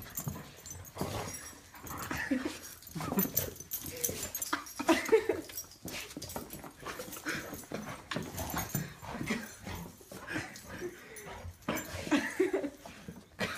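Golden retriever whining and whimpering with excitement, in many short, irregular cries.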